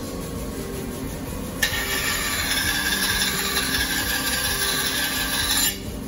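A deba knife blade is held against a large spinning white cement-type grinding wheel, giving a loud, even grinding hiss. The hiss starts suddenly about a second and a half in and cuts off sharply near the end when the blade is lifted, over the steady low hum of the wheel running.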